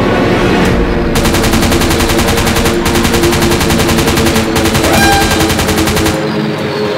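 Machine-gun sound effect firing rapidly in three long bursts during an aerial dogfight, over steady background music.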